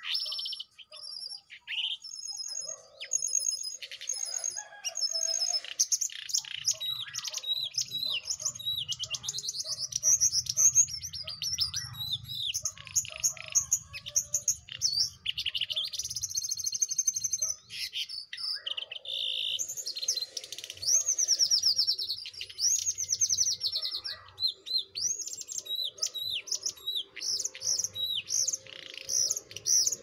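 Jongkangan songbirds, a wild one beside a cage and the caged one, chirping and trilling in quick, high-pitched runs of notes with hardly a pause.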